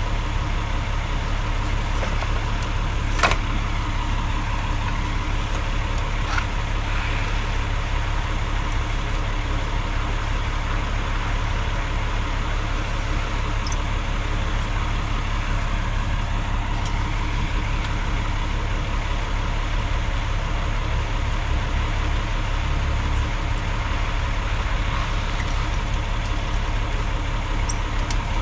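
An engine idling steadily, with one sharp knock about three seconds in.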